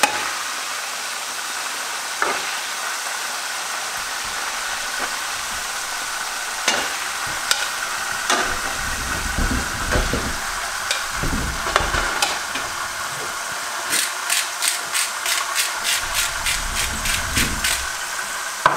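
Food sizzling in a frying pan on an electric stove while a spatula stirs it, with occasional scrapes and clicks against the pan and a few dull knocks. Near the end comes a run of quick even clicking, about four a second, from a salt grinder being twisted.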